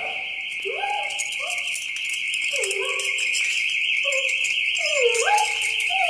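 Miniature pinscher howling in several short wails that rise and fall, over a car alarm siren's steady, fast-warbling high electronic tone.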